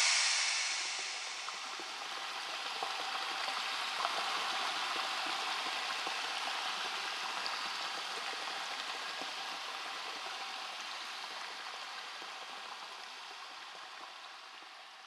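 Steady hiss of a small waterfall running, fading out toward the end.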